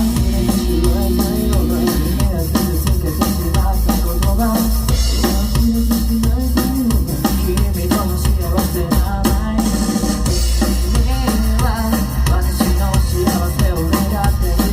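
A band playing live at full volume, with a drum kit of bass drum and snare driving the song under the melodic parts.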